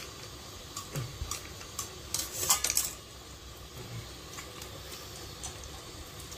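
A plastic curd packet being cut open with a knife and handled over a steel tin: a few light clicks, then a short cluster of sharp clinks and crackles about two and a half seconds in.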